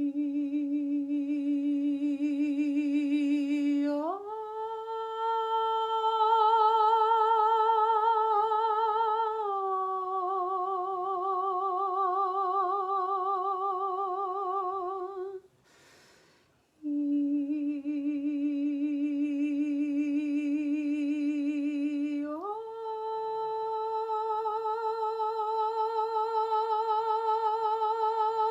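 A woman's voice humming long held notes with a slow vibrato, sliding up from a low note to a higher one, then stepping down a little. About halfway through she takes a short breath, then starts the low note again and slides up. This is vocal toning for a sound healing.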